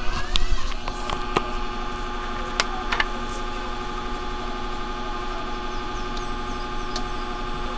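Daewoo CRT TV squealing just after switch-on: a whistle rising in pitch in the first second, then a steady whine of several tones with a few sharp ticks, and a thin high tone joining near the end. The whistling is the sign of the set's oscillation fault, in which it shows no picture and trips off.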